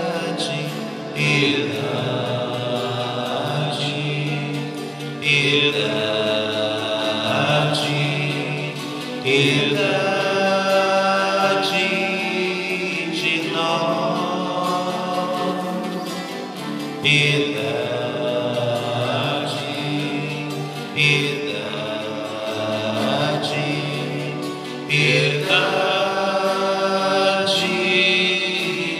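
Sung liturgical music during the penitential rite of a Catholic Mass: a voice sings phrases that begin about every four seconds over a steady sustained accompaniment.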